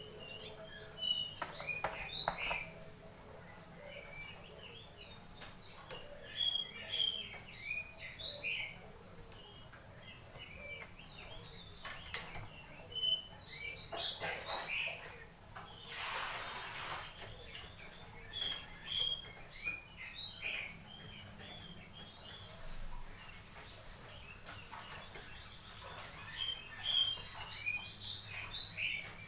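Oriental magpie-robin (kacer) in full song, giving bursts of quick, high chirping phrases with short pauses between them. A brief rustle comes about halfway through.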